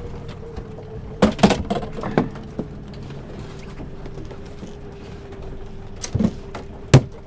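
Sharp wooden knocks as a fish club strikes a freshly netted coho salmon on a boat deck: a cluster about a second in, two more soon after and another pair near the end. Under them, the steady hum of the boat's engine.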